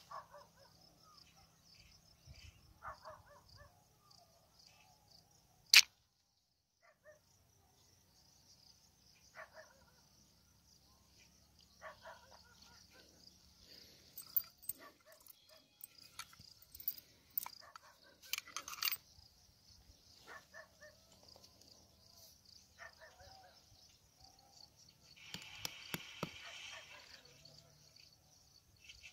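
Insects chirping in a steady, high continuous drone. A single sharp, loud click comes about six seconds in, and small scattered clicks and rustles follow from hands working near the ground.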